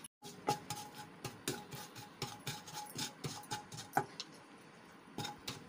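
Wooden spatula stirring and scraping spices frying in oil in a nonstick pan: irregular knocks and scrapes a few times a second, easing off about four seconds in, then picking up again near the end. A faint steady whine sounds under the first few seconds.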